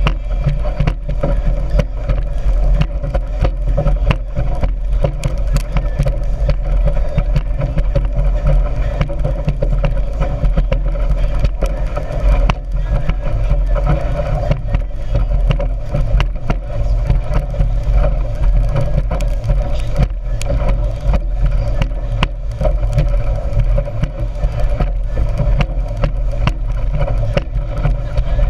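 Speedboat running fast: a loud, steady engine drone with rushing wind and water noise, broken by many short sharp knocks.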